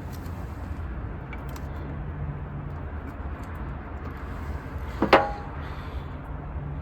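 Steady low background rumble, with one sharp metallic clank about five seconds in that rings briefly, as a metal object is set down or knocked during engine work.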